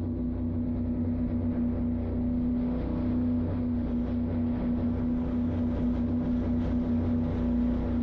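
Steady motor drone holding one constant pitch, with rushing wind noise underneath, from the speedboat's engines and the chasing FPV drone's motors.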